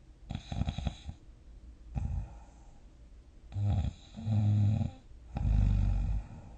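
A sleeping person snoring: a string of uneven snores, the first rattling, the one near the end the longest and loudest.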